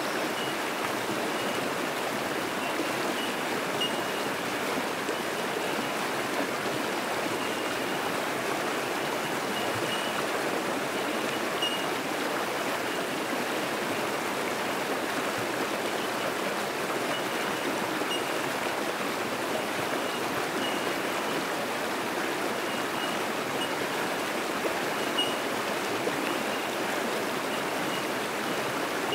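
Fast-flowing creek rushing over rocks in rapids: a steady, unbroken rush of water. Short high calls of bell miners (bellbirds) sound now and then behind it.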